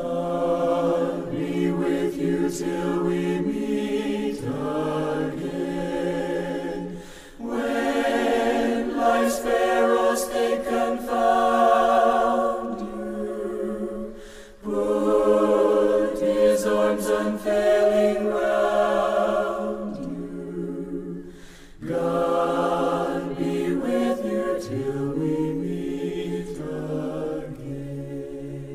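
A small group of voices singing a hymn unaccompanied, in long sung phrases with brief pauses for breath between them.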